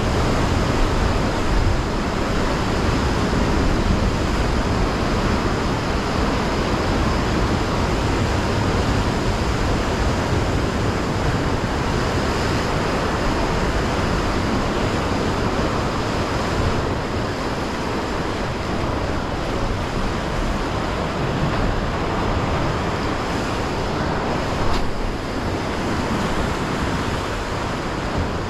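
Heavy sea surf surging and breaking against rocks in a steady wash of noise, with wind rumbling on the microphone.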